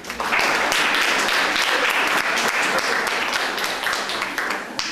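Audience clapping and applauding, rising just after the start and dying away near the end.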